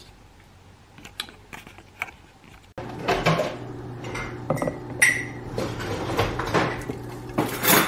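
Thick smoothie being poured and scraped from a blender jar into a glass mason jar, with repeated clinks and knocks against the glass over a low steady hum. This starts suddenly about three seconds in, after a quieter stretch with a few soft clicks.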